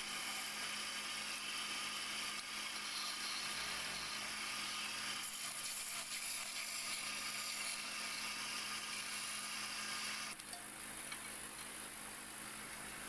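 Wood lathe running with a steady motor hum while a hand chisel cuts the spinning wooden spindle, giving a steady hiss of cutting. About ten seconds in the hiss stops suddenly as the spindle is parted off, and only the lathe's running hum is left.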